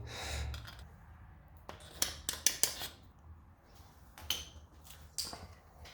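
A few light clicks and taps of small parts being handled and pushed together: a stock pivot piece being seated into a 3D printed license plate mount. A cluster of clicks comes about two seconds in, with single taps later.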